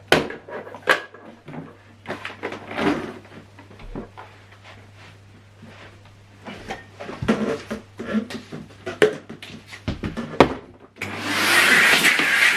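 Scattered clicks and knocks of handling, then about 11 seconds in a Numatic Henry vacuum cleaner switches on and runs with a steady rushing sound.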